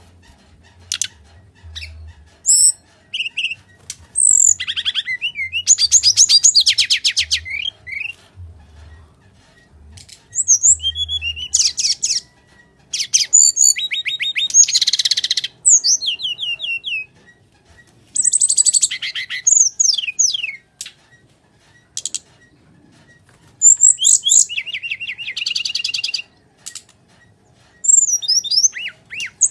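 A caged brown-chested jungle flycatcher (SRDC) singing its full fighting song. The song comes in bursts of fast whistled phrases and rapid trills, repeated with short pauses.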